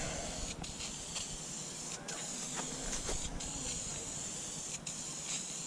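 Aerosol spray can of Duplicolor vinyl and fabric paint hissing steadily as it sprays carpet, with a few very short breaks in the spray.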